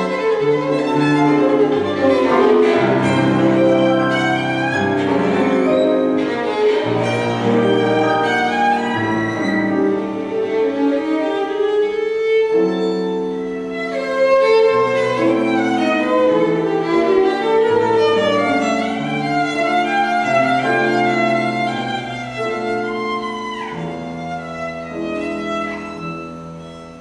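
Violin and grand piano playing a waltz live, the bowed violin carrying the melody over the piano accompaniment. The music grows quieter over the last few seconds.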